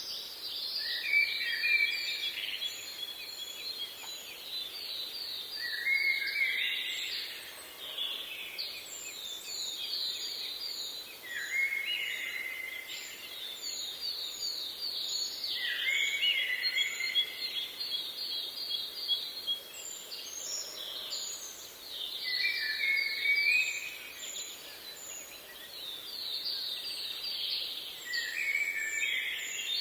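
Several birds calling together: fast repeated trills and short high chirps overlap, with a louder phrase every few seconds, over a faint outdoor hiss.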